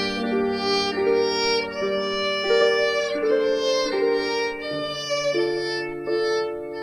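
Live recital music: a violin playing a slow melody of held notes over a sustained lower accompaniment.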